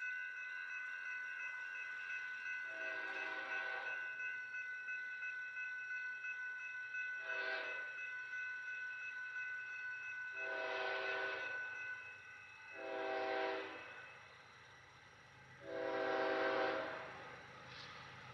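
Horn of an approaching freight train's lead locomotive, a Norfolk Southern unit in Conrail heritage paint, sounding five blasts of varied length, some long and some short. The blasts come from far down the line.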